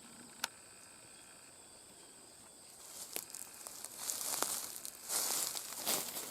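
Footsteps swishing and crunching through dry fall undergrowth, starting about three seconds in and growing louder. Before that, a faint steady high insect trill with a single sharp click.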